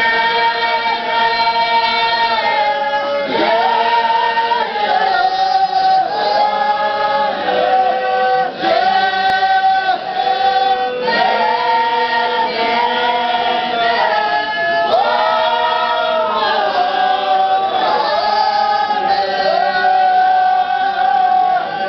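A group of Tibetan Buddhist monks chanting together in unison, in long held notes that slide from one pitch to the next in phrases a few seconds long.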